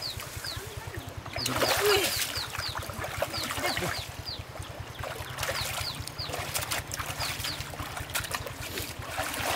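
Small petrol water-pump engine running steadily, with splashing in shallow muddy water as catfish are grabbed by hand. A bird repeats runs of short high chirps.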